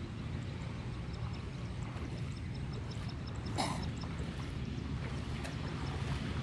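Outdoor ambience dominated by a steady low wind rumble on the microphone, with faint water sloshing as a person wades through shallow water and one short splash about three and a half seconds in. A faint, regular high ticking runs underneath.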